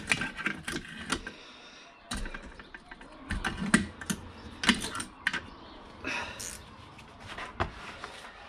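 Irregular sharp clicks and clinks of hand tools being handled, with a few louder knocks about a third and halfway in.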